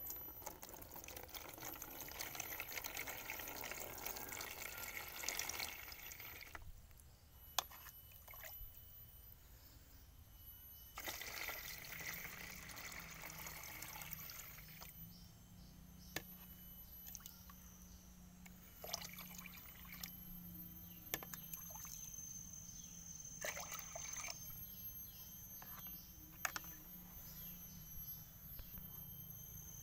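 Water poured into a shallow plastic tub, in two pours: one over the first six seconds or so and another from about eleven to fifteen seconds in. A few sharp clicks fall between and after the pours.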